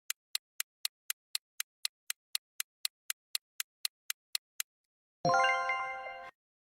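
Quiz countdown-timer sound effect: sharp clock ticks, about four a second, for some four and a half seconds. After a short pause comes a bright chime that rings for about a second and fades, marking the end of the countdown.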